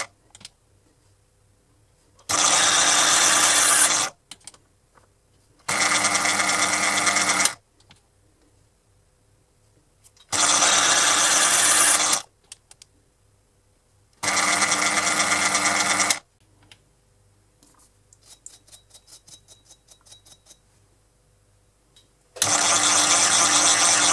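Proxxon PD 250/e mini lathe running in five bursts of about two seconds each while single-point threading passes are cut, each burst starting and stopping sharply. The pauses between are nearly silent, with a few light clicks and a quick run of clicks a little past the middle.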